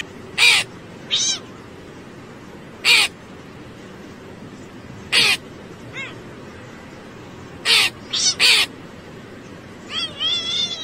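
A crow cawing: short, harsh calls every second or two, some in quick runs of two or three, over a steady hiss. Near the end comes a longer call that wavers up and down in pitch.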